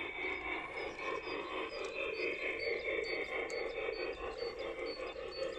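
Large-scale garden model freight train rolling across a wooden trestle: the steady running noise of wheels on rails, with a quick light ticking of about three ticks a second.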